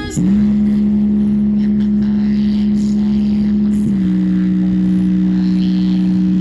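A small Bluetooth speaker (GRASEP D-G123) playing music: a loud, steady, buzzy held low note with no voice, which steps slightly lower in pitch about four seconds in.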